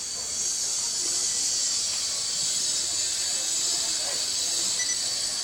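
Cicadas buzzing, a steady high-pitched shrill drone that grows a little louder just after the start.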